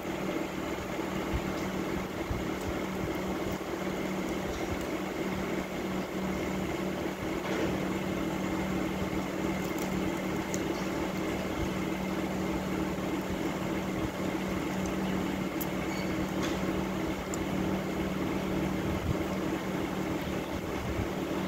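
Steady machine hum, like a running fan, with two low steady tones and a few faint clicks scattered through it.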